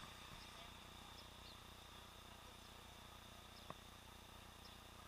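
Near silence from a helmet camera sealed in a waterproof underwater housing: only a faint steady hiss and a thin, steady high-pitched whine, with one soft click about three and a half seconds in.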